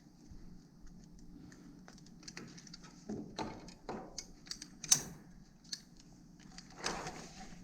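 Scattered light clicks, clinks and knocks from gear being handled by hand, with one sharper click about five seconds in, over a faint steady hum.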